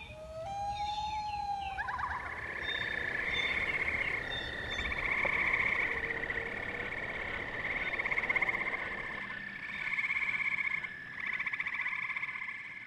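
A long wailing call that rises and then holds in the first two seconds. Then a chorus of frogs trilling on a night lakeshore: overlapping pulsed trills about a second long, over one unbroken trill.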